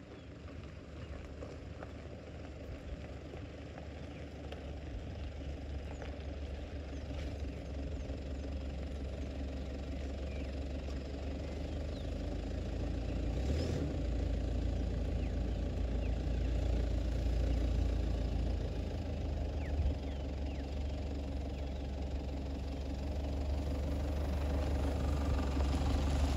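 A vehicle engine running with a steady low rumble that grows gradually louder.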